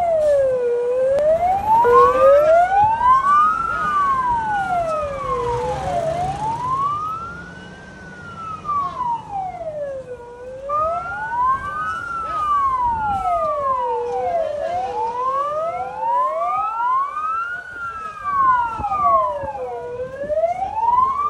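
Fire engine siren wailing in a slow rise and fall, about four to five seconds per cycle. At times a second wail overlaps out of step with the first.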